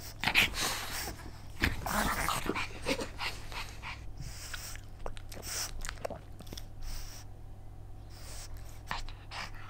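Pugs making short, irregular dog noises, close to the microphone, over a steady low hum.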